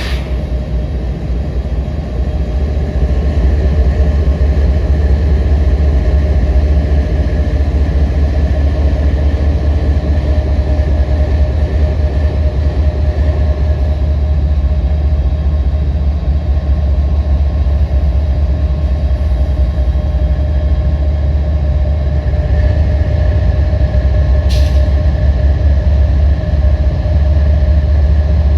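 Sound-equipped HO scale model diesel locomotives, a multi-unit consist, running with a steady low diesel drone. A short hiss comes near the end.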